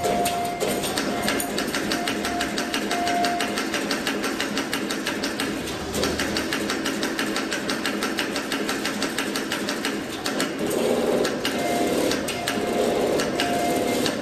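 CNC wire-bending machine clattering with rapid, even clicks as its bending head swings round and bends steel wire.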